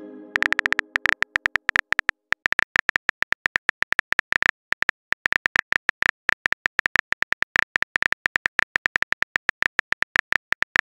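Simulated phone keyboard key clicks, quick and uneven at several taps a second, as a message is typed out on an on-screen keyboard. The ringing tail of a chime fades out in the first second.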